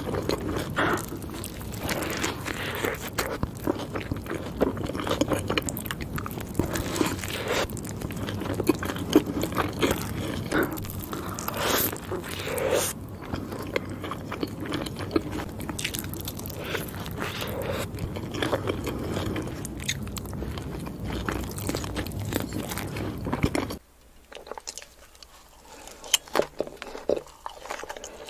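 Close-miked eating: biting into and chewing a cheeseburger and seasoned curly fries, with wet chewing and crunchy bites. About 24 s in the sound drops suddenly to quieter eating noises with scattered small clicks.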